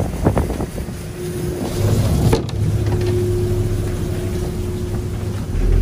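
Fishing boat's engine running with a steady hum, over a rushing noise of water and wind at sea.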